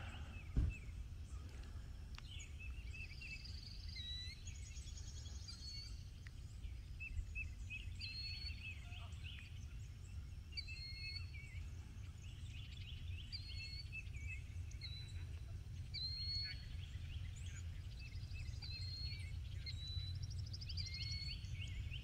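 Wild birds calling across a lake: many short, repeated chirps and quick trills from several birds, over a steady low rumble.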